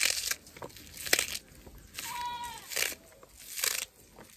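A kitchen knife cutting crisp green herb stalks held in the hand, with three sharp crunching cuts. One held bleat sounds in the middle, between the cuts.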